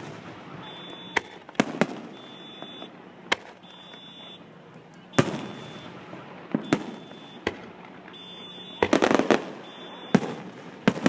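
Aerial fireworks bursting: irregular single booms several seconds apart that echo briefly, with a quick rattle of crackling reports about nine seconds in.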